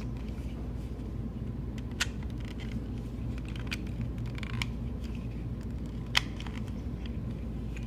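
A few sharp plastic clicks spaced irregularly, the loudest about six seconds in, from a universal travel adapter being handled, its slide-out plugs clicking, over a low steady hum.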